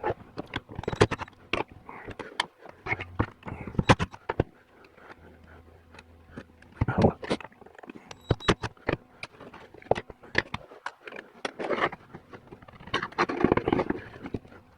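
Metal parts clicking, tapping and scraping as a Tuned Port Injection fuel rail is worked apart by hand: many sharp irregular clicks, with longer scrapes about seven seconds in and near the end.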